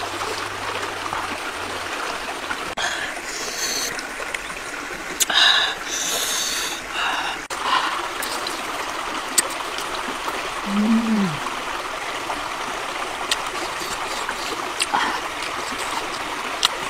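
A person eating grilled squid with her hands, with wet chewing and mouth noises heard in clusters about three to seven seconds in, over a steady running-water hiss. A short hummed 'mm' rises and falls about eleven seconds in.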